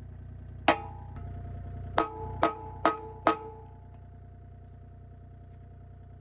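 Five hammer blows on the steel of an excavator joint, striking to drive out a worn bushing. Each blow rings metallically, the last four in quick succession. A steady engine drone runs underneath.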